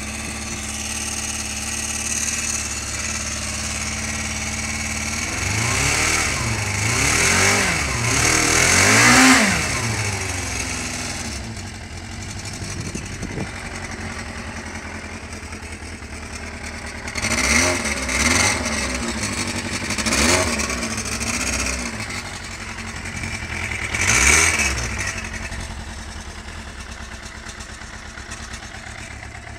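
1993 Suzuki RF400's inline-four engine, with 76,000 km on it, idling and being revved: a run of several quick revs about five to ten seconds in, loudest at the end of the run, then four single blips of the throttle in the second half, each falling back to a steady idle.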